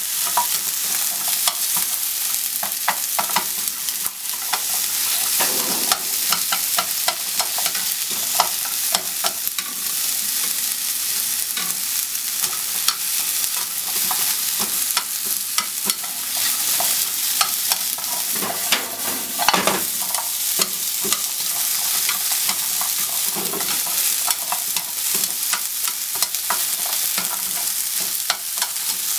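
Sliced onions sizzling steadily in a non-stick frying pan while wooden chopsticks stir them, with frequent small clicks and taps of the chopsticks against the pan.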